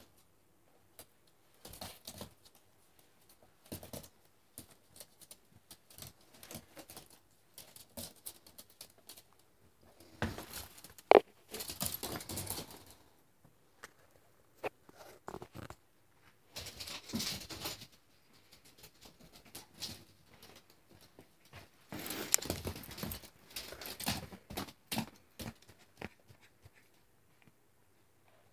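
Small dog scrabbling and scuffling on a hardwood floor while tussling over a plush toy: irregular bursts of claw clicks, sliding paws and rustling, with one sharp louder sound about eleven seconds in.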